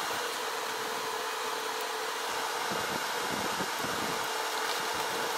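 Steady fan-like whirring with a faint hum, from a machine running. Over it, a light rustle of dry grass being dragged aside with a snake hook.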